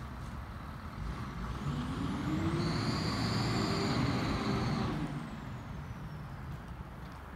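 A road vehicle driving past, swelling from about a second in to its loudest around three to four seconds and fading away by five seconds, with a high steady whine at its loudest.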